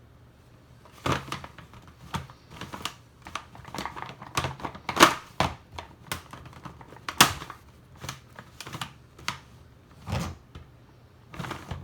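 Giant plastic Rubik's cube (He Shu, 18 cm) being turned by hand: irregular clacking and rattling of its big plastic pieces, with a few louder clacks as layers snap round.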